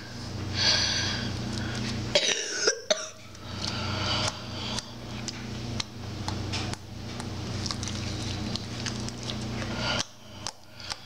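Homemade slime being stretched and squished by hand, giving a run of small sticky clicks and pops. Two louder noisy squelches come in the first three seconds.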